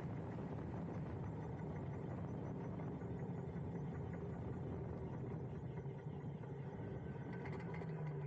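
Wind and road noise on a camera mounted on a moving Huck Cycles electric motorcycle, a steady low rush with a faint hum.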